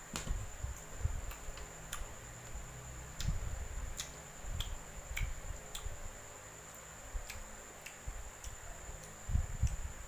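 Close-miked chewing and crunching of unripe green mango: irregular crisp clicks and crunches with soft low thumps.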